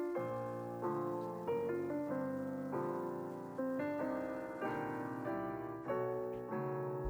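Solo piano music: chords struck about every half second to a second, each one fading before the next.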